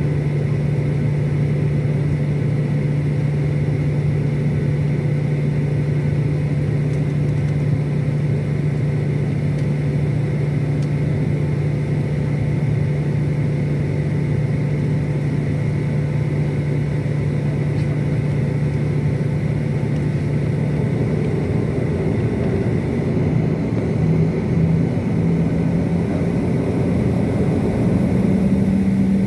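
Airliner jet engines running with a steady drone. Near the end the pitch wavers and then steps up, as the engines are throttled up.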